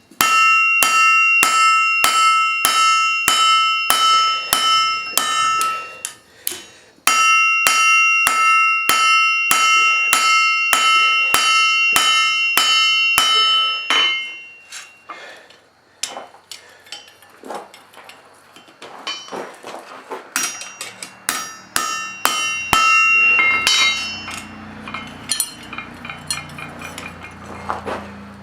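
Blacksmith's hammer striking steel on an anvil, about two blows a second in two steady runs with a brief pause between them, each blow leaving a high ring. In the second half the blows turn lighter and irregular.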